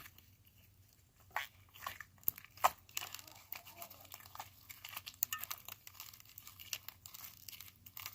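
Crinkling and crackling of something being handled: many small sharp crackles, with a few louder ones in the second and third seconds.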